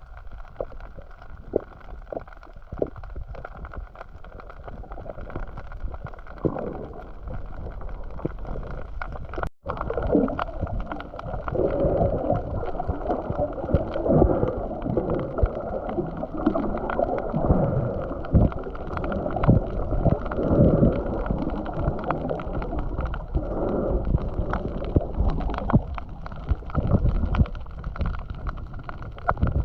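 Muffled water gurgling and rumbling, as heard by a camera in a waterproof housing in the water. It drops out briefly about ten seconds in and is louder and busier after.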